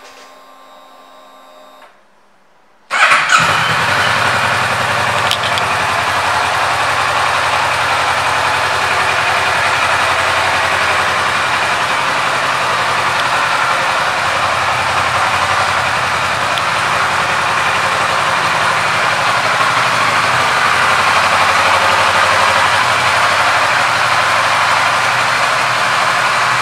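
Kawasaki Versys 650 LT's parallel-twin engine starting about three seconds in, then idling steadily.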